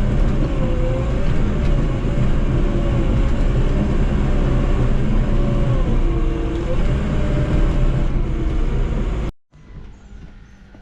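Heavy-equipment diesel engine running loud and steady, with a wavering whine over it, cutting off abruptly about nine seconds in. A few faint knocks follow in the quiet.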